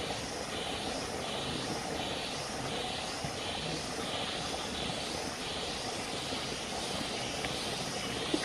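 Forest insects chirring in a high pulsing drone, swelling and fading about twice a second, over a steady low rumble.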